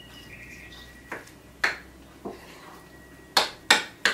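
A spoon knocking against a bowl while stirring a thick walnut, onion and pomegranate-paste stuffing: about six sharp, separate knocks, the loudest two coming close together near the end.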